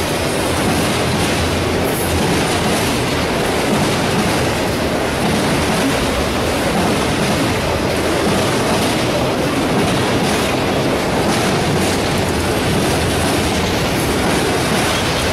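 Freight train of autorack cars rolling past close by at speed: a steady, loud din of steel wheels on the rails.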